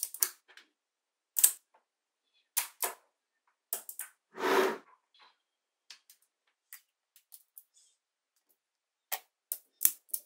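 Small magnetic balls clicking sharply as they snap together, in scattered single and paired clicks. A brief rattle of about half a second comes about four seconds in.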